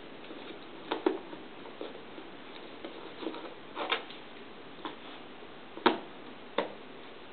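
Jigsaw puzzle pieces being handled and set down: scattered light taps and clicks at an uneven pace, the sharpest about six seconds in.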